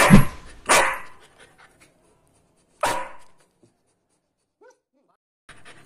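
Rottweiler puppy breathing out in short, breathy huffs: two close together at the start and one more about three seconds in.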